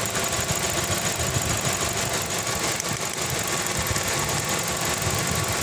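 Toyota Vios engine idling steadily with a rapid clicking. The mechanic attributes the clicking to spark jumping (arcing) at an ignition coil or plug boot.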